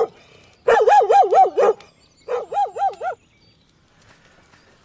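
A black dog howling in two bouts, the first about a second long and the second a little shorter, its pitch wavering rapidly up and down several times a second.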